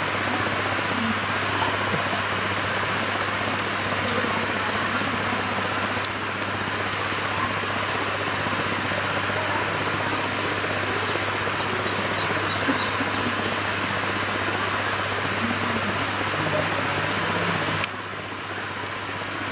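Steady rushing of a shallow river running over rocks, a little quieter near the end.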